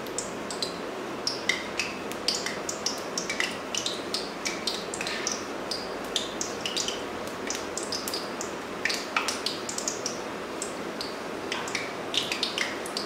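Gujiyas frying in oil kept on a low flame: a steady gentle sizzle with many small irregular pops and crackles as the oil bubbles around the dough pastries.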